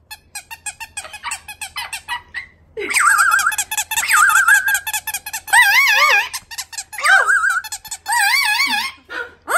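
Handheld rubber squeaky toy squeezed over and over. The first couple of seconds are a rapid run of short clicks and squeaks, then come several longer, wavering squeaks.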